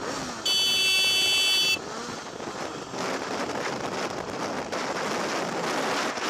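Motorcycle riding at speed with wind buffeting the helmet microphone. About half a second in, a horn sounds in one steady, loud blast lasting just over a second, then cuts off sharply.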